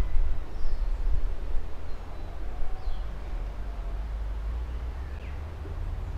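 Low, gusty wind rumble on the microphone, heavier in the first two seconds, with a few faint, short bird chirps.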